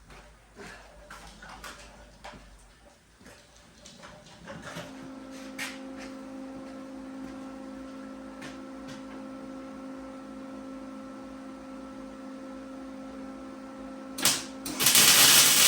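Steady electrical hum with scattered clicks and taps. Near the end come loud crackling bursts of welding.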